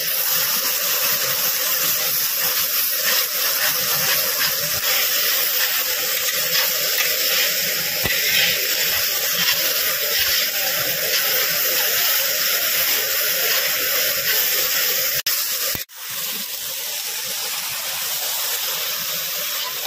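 Masala paste (onion, ginger and garlic pastes with chilli powder) sizzling in hot oil in an iron kadai while being stirred with a metal spatula, a steady frying hiss as the spices are cooked down (kosha). The hiss breaks off briefly about three-quarters of the way through, then carries on a little softer.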